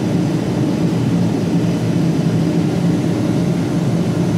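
A steady, loud, low machine drone with a constant hum running through it, like an engine or motor running nearby.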